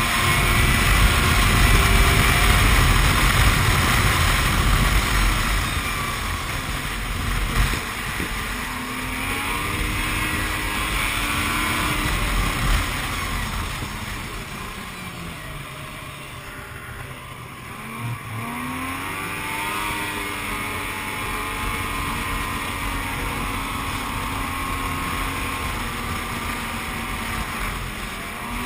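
Yamaha snowmobile engine running under way along the trail, its note falling off about halfway through and picking up again a few seconds later. The heavy low rumble is loudest over the first few seconds.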